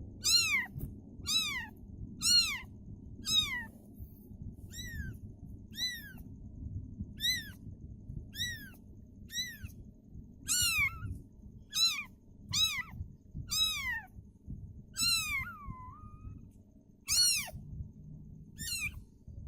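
A kitten meowing over and over, short high-pitched falling cries about once a second, with a brief pause near the end.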